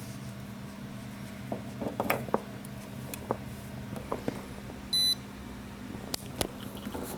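DenisNetwork C40 portable compressor fridge's compressor running with a steady low hum, with a few clicks of handling and a single short, high electronic beep about five seconds in.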